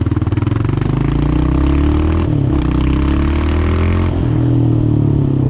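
Yamaha sport ATV engine accelerating under load, its pitch climbing and dropping at an upshift about two seconds in, then climbing again with another shift about four seconds in.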